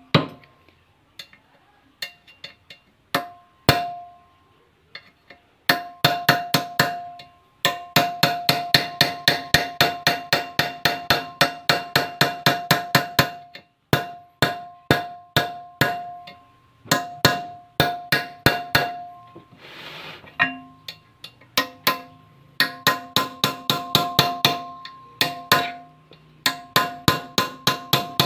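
Hammer tapping a small chisel against the steel rim of a ball joint housing on a lower suspension arm held in a vise. The strikes ring and come in quick runs of about four a second with short pauses, as the crimp holding the worn ball joint is chiseled open to take it apart.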